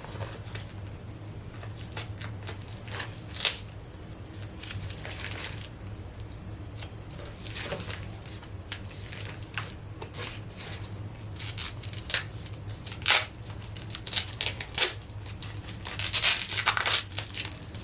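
A tightly sealed plastic parcel being cut with scissors and torn open, with irregular snips, rips and crinkles that come thickest near the end. A steady low hum runs underneath.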